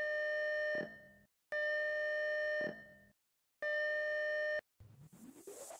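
Electronic alarm beeps sound three times, each a steady tone about a second long, the last cutting off abruptly. Near the end a rising sweep begins, building into an electronic music intro.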